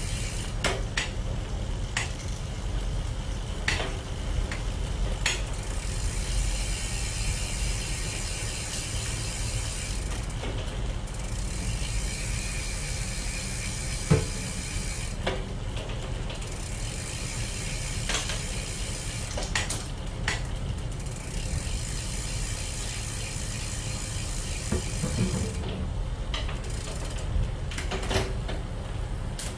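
Bicycle rear freehub ratchet clicking rapidly as the cranks are turned backward to oil the chain, in stretches of several seconds with short pauses, over a steady low rumble.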